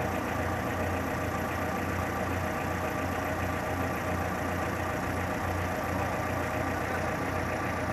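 Cat forklift's engine idling steadily, a low even hum.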